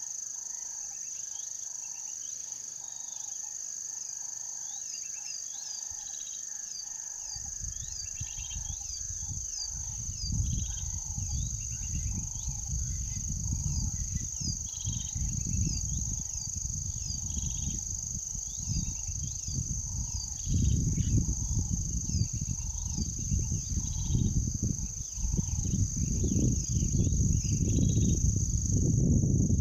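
Savanna ambience: a steady high-pitched insect drone with many short chirping bird calls. From about seven seconds in, an uneven low wind rumble on the microphone grows louder toward the end.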